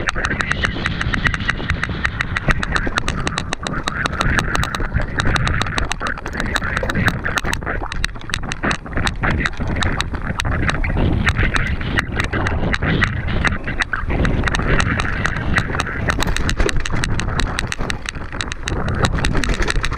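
Mountain bike clattering over rough ground in a race: a dense, irregular run of quick knocks and rattles over a steady low rumble.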